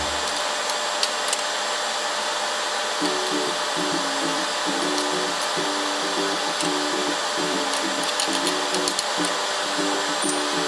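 Chopped onion and garlic sizzling in oil in a frying pan, a steady hiss with a few light clicks of the spatula against the pan. Background music with a short repeating note pattern comes in about three seconds in.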